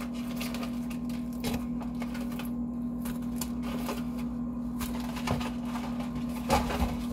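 Fried chicken pieces being handled and set down on a wooden board: a few soft knocks and rustles over a steady low hum.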